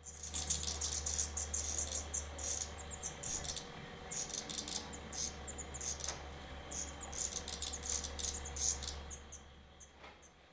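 Black redstart nestlings begging in the nest as a parent comes to feed them: rapid, very high-pitched calls in quick runs of bursts that die away about nine seconds in.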